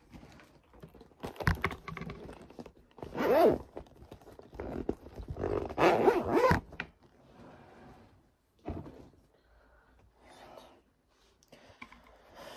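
Clear vinyl toiletry bag being handled: the stiff plastic crinkles and rustles in a few loud bursts, with a short knock later on.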